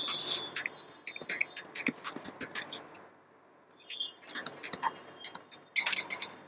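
Typing on a computer keyboard: a run of quick key clicks, with a pause of under a second about halfway through.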